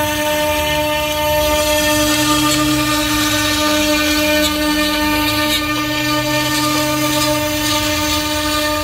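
Electric woodworking power tool running steadily with a constant whine that holds one pitch.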